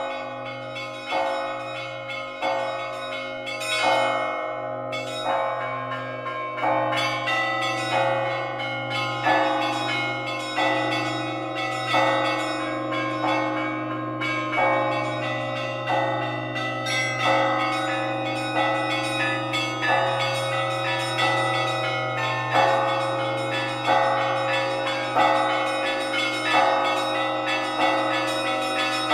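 Several church bells pealing, struck one after another at varying pitches at a steady pace of roughly one to two strokes a second. Their tones ring on and overlap above a steady low hum.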